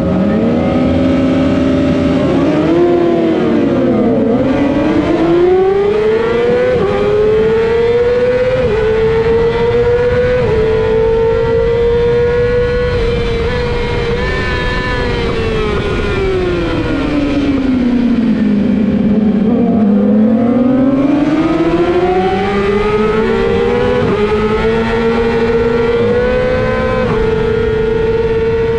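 Yamaha YZF-R6 600 cc inline-four race engine heard onboard at full throttle, revving up and dropping back slightly with each upshift, then holding high revs. About two-thirds of the way through the revs fall away as the rider slows for a corner, then climb again through a series of upshifts.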